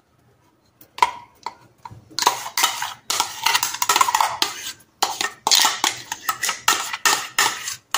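Steel spoon scraping and tapping against the inside of a stainless-steel mixer-grinder jar as banana paste is scooped out. It is a quick run of short metallic scrapes and clinks that starts about a second in and comes faster, about three a second, toward the end.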